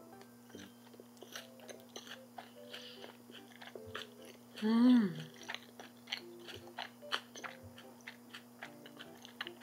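Close-up chewing of sauce-coated boneless fried chicken: many small crisp crunches with closed-mouth chewing. Light background music plays throughout. About halfway through comes a short hummed 'mm' of enjoyment, the loudest sound.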